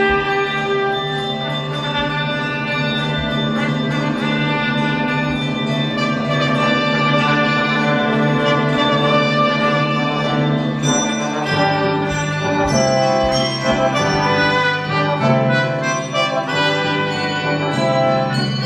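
Handbell choir ringing together with a brass quartet of trumpets and trombone playing sustained chords, with the low notes moving to a new pitch about halfway through.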